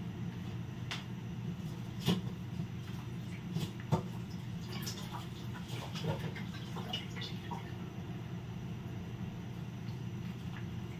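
Pot of soup broth simmering on the stove, with scattered small ticks and pops of bubbles, including a sharper click about two seconds in and another about four seconds in. A steady low hum runs underneath.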